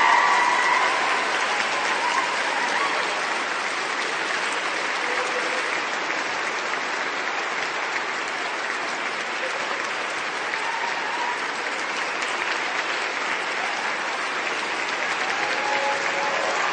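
A large crowd applauding, a dense, continuous clatter of many hands clapping. It eases a little after the first couple of seconds and swells again near the end.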